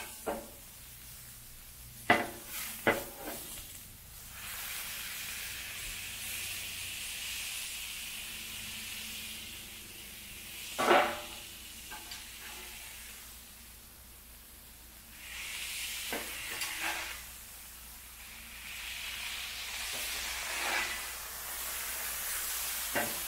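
Ground-beef smash burgers sizzling on a hot Blackstone flat-top griddle as they are pressed flat with a cast iron burger press. The sizzle comes in two long stretches, and sharp metal knocks on the griddle come about two, three and eleven seconds in.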